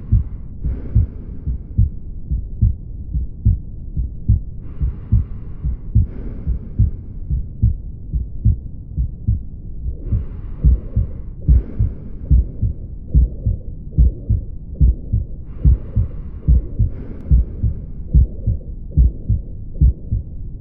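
Heartbeat heard through a stethoscope: regular low thuds at about 80 beats a minute. About every five and a half seconds a softer two-part hiss of breathing, in and out, rises over it.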